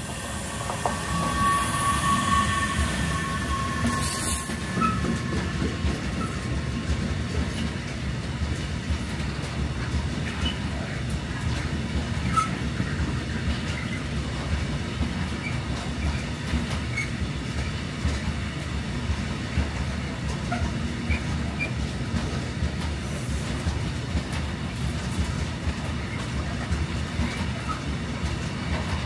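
Freight train rolling through a station: a steady rumble of wagons, with wheels clattering over rail joints and squealing now and then. About four seconds in comes a brief, loud, high-pitched screech.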